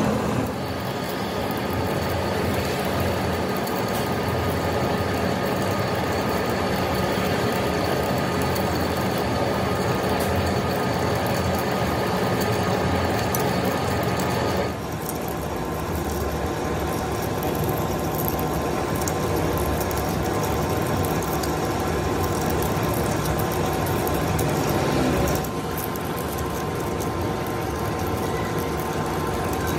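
Metalworking lathe running steadily while turning an iron shaft: a steady hum under thin, high whines. The sound changes abruptly about halfway through and again near the end.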